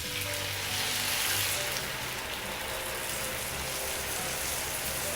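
Jaggery syrup going into a hot pan of ghee-fried ripe banana and coconut, sizzling steadily, strongest in the first couple of seconds.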